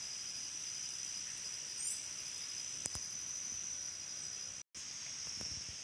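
Steady high-pitched chorus of insects in forest scrub. A short bird chirp comes about two seconds in, and a single click a second later. The sound drops out for an instant just before the end.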